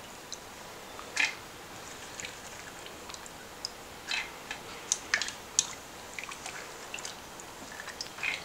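Light scattered clicks and drips from handling wet, soaked chana dal as it is moved toward the mixer jar. The grinder is not running.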